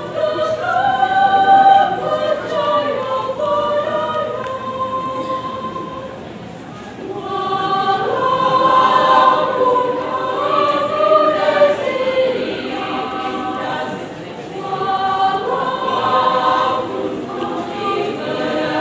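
Women's choir singing in parts, holding sustained chords in long phrases, with brief softer breaks between phrases about six seconds in and again near fourteen seconds.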